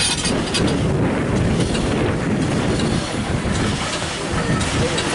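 Steam locomotive of a WW2 trench-engine type moving on the rails, heard from its footplate: a steady rumble of the engine and wheels on the track, with a few sharp clicks.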